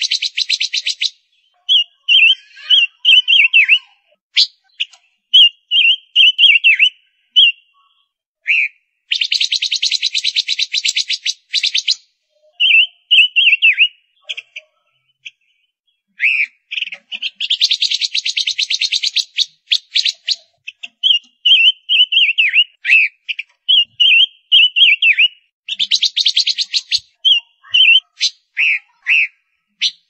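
Female silver-eared mesia calling: four long bursts of a fast, rattling trill alternate with runs of short, clear notes that slur downward.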